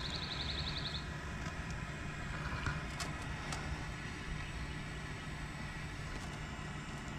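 Handheld torch lighter burning with a steady hiss and low rumble as it lights a fire starter in a charcoal smoker's firebox. A light rapid ticking is heard in the first second, and a couple of faint clicks about three seconds in.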